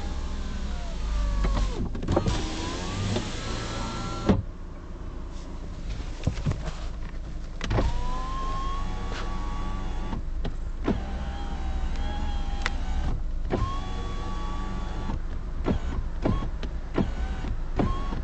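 Car power window motor whining as it drives the glass up and down several times, each run ending abruptly with a sharp knock, the loudest about four seconds in, then a few short bursts near the end. The glass knocks as if hitting something when it stops at the bottom, a noise the other windows don't make and whose cause the owner cannot find.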